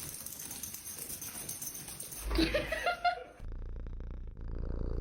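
A cat purring steadily, starting suddenly about three and a half seconds in. Before it, a short rising vocal sound is heard over a steady hiss.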